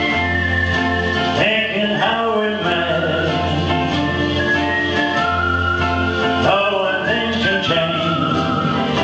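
A man singing a song into a microphone over instrumental backing music. The melody has long held high notes and some sliding pitches.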